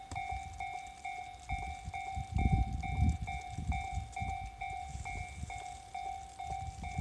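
Japanese railway level-crossing warning bell ringing: an electronic ding repeating steadily a little over twice a second. Low rumbling rises under it, strongest about two to four seconds in.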